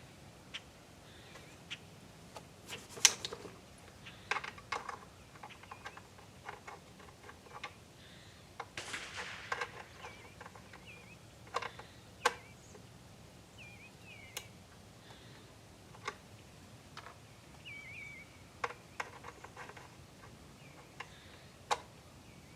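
Scattered light clicks and knocks of handling, the loudest about three seconds in, with a few faint bird chirps in the middle.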